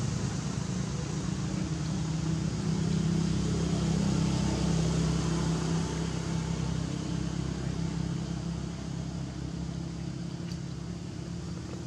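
A steady low mechanical hum with a hiss over it, swelling slightly a few seconds in and easing toward the end.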